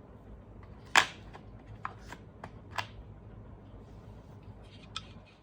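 Handling of small hard objects: a sharp click about a second in, then a few lighter clicks and taps, and one more click near the end.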